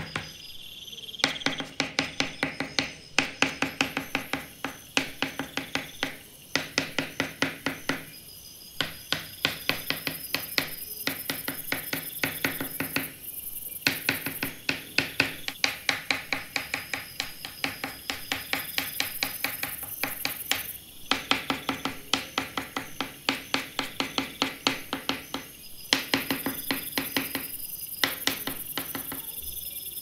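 Soft pastel stick scratching across sandpaper in quick short strokes, several a second, in runs broken by brief pauses.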